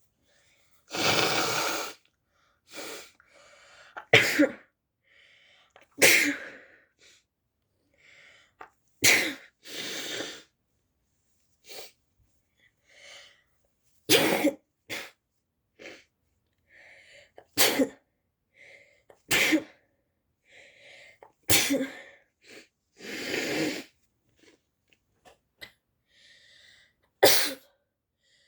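A person sneezing over and over, about ten sharp sneezes a few seconds apart, some short and some drawn out, with fainter sounds between them.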